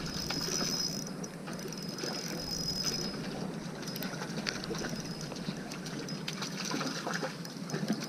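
Spinning reel being cranked as a hooked trout is played and reeled in, with scattered clicks.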